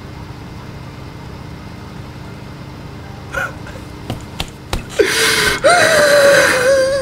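A person's high-pitched, strained squeal or shriek, held for about two seconds. It starts about five seconds in with a quick rise and then holds a steady pitch, after a few short clicks. Before it there is only a low, steady background hum.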